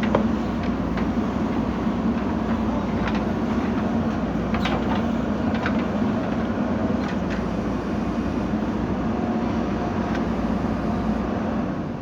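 JCB 3DX backhoe loader's diesel engine running steadily under load, with a few short knocks or clanks scattered through it.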